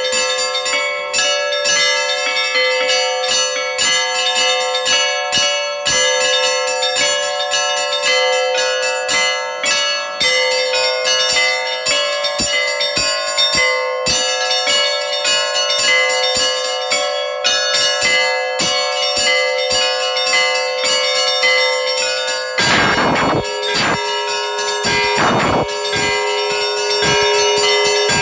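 Russian Orthodox church bells ringing in a festive peal: small bells struck in a rapid, dense pattern over the steady hum of larger bells. Two short bursts of rushing noise break in about three-quarters of the way through.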